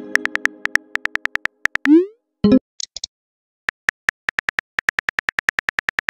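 Simulated phone texting sound effects: a chime fading out at the start, a run of rapid keyboard tap clicks, a short rising whoosh as a message is sent about two seconds in, then another long run of steady tap clicks as the next message is typed.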